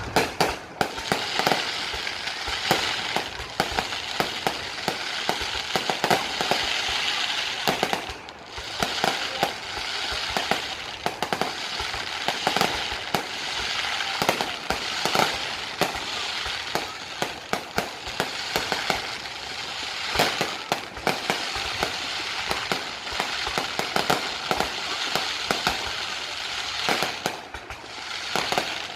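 Fireworks display going off in a dense barrage: many rapid bangs and crackles over a steady hiss, with a brief lull about eight seconds in and another near the end.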